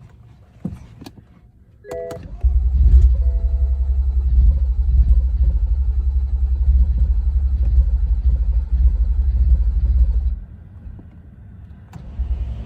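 BMW M135i's starter motor cranking its N55 straight-six for about eight seconds without the engine catching, the sign of a crank-no-start fault; the cranking stops abruptly. A few clicks and a short chime come just before the cranking starts.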